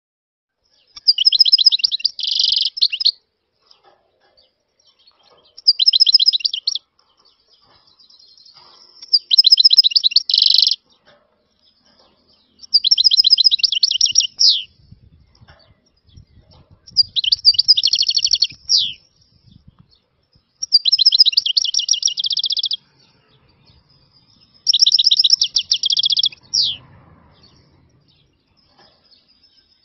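European goldfinch singing in seven short phrases of fast, high trilled notes, each phrase about two seconds long, with pauses of about two seconds between them.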